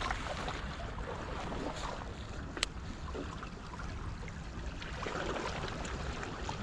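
Wind rumbling on the microphone over a steady outdoor hiss of rain and sea, with scattered small ticks and one sharp click about two and a half seconds in.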